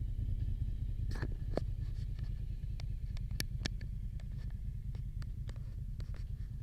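Steady low rumble with a scatter of sharp clicks and ticks, loudest a little over a second in and again around three and a half seconds in.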